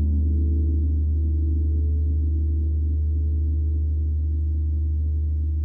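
32-inch Sri Yantra gong ringing on after a soft stroke from a heavy padded L460 mallet: a deep, steady hum with layered overtones above it, fading only slightly.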